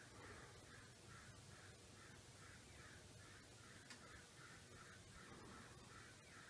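A bird calling faintly in a fast, even run of short, harsh calls, about three a second.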